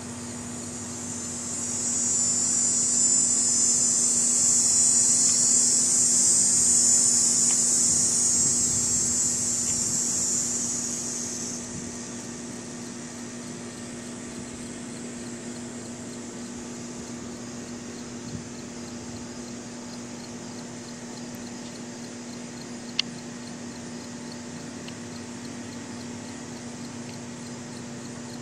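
A cicada's loud, high buzzing song swelling in about two seconds in, holding steady, then dying away about eleven seconds in. A single sharp click comes near the end, over a steady low hum.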